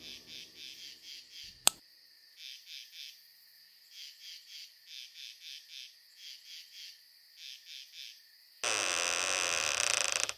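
Crickets chirping in short pulsed groups, about four or five chirps a second, as eerie night ambience. A single sharp click comes about a second and a half in. Near the end a sudden loud noise sting breaks in and cuts off abruptly.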